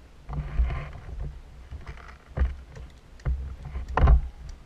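Rustling and scuffing of a leafy ghillie suit and gear against a body-mounted camera as the player moves, with a few heavier knocks, the loudest about four seconds in.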